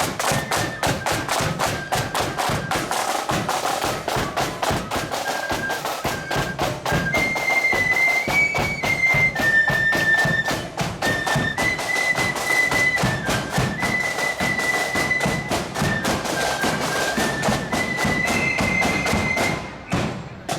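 Marching flute band playing a tune: flutes carry a high melody over rapid snare and bass drum beats, and the music stops near the end.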